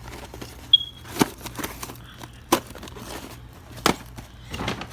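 Firework packages being handled: plastic and cardboard packaging crinkling, with four sharp knocks spread through.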